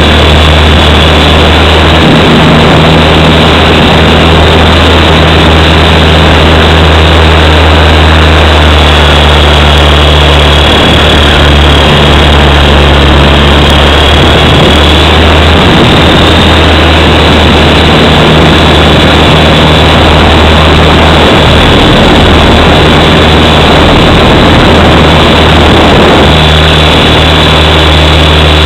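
Small V912 RC helicopter in flight, heard from a camera mounted on its own frame: a loud, steady whir of the main rotor and motor with a thin high whine on top. The low drone steps up and down in pitch every few seconds as the throttle changes.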